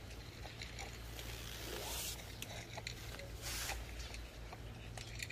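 Cats eating dry kibble from bowls: faint crunching clicks, with two short rustles, one about a second in and another past three seconds, over a steady low hum.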